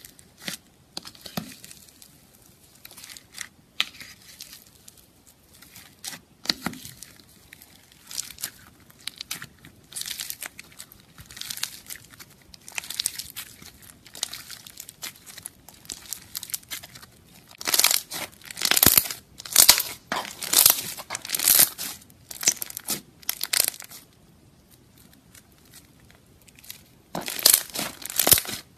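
Hands pressing and squeezing foam-bead slime (floam), the tiny polystyrene beads crackling and crunching in irregular bursts. The crackling is loudest and densest in the second half, pauses briefly, then starts again near the end.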